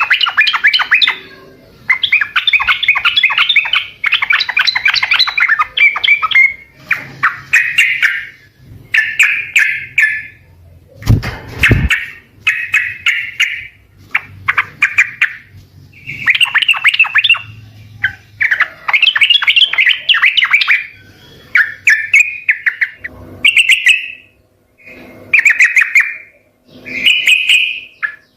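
Yellow-vented bulbul (trucukan) singing: repeated bouts of rapid, bubbly chattering notes, each about one to two seconds long, with short pauses between. A single loud thump about eleven seconds in.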